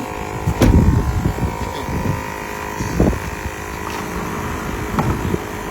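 Roadside traffic rumble with wind buffeting the microphone, and a few short knocks.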